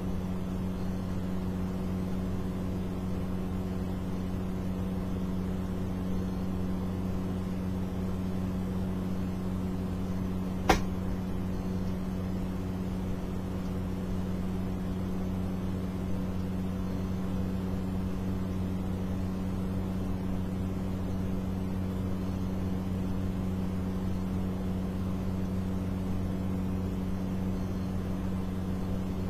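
A steady, unchanging hum made of several even tones, with one sharp click about eleven seconds in.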